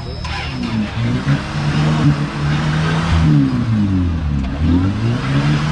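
Off-road 4x4's engine running under load, holding steady at first and then revving up and dropping back several times from about halfway.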